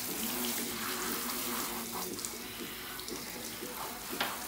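Water running from a grooming tub's faucet hose and splashing over a dog's heavily matted coat as it is soaked through before shampooing. A short knock near the end.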